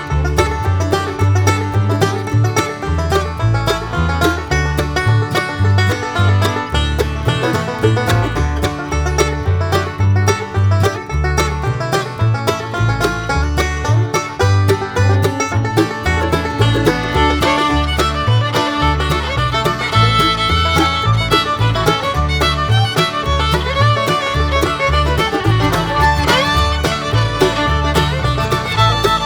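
Upbeat bluegrass-style background music: fast picked banjo and guitar over a steady bass beat, with fiddle coming in more strongly in the second half.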